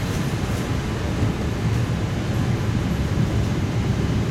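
Steady low running rumble inside a passenger car of an EP2D electric multiple unit under way between stations: wheels on the rails and the train's running gear.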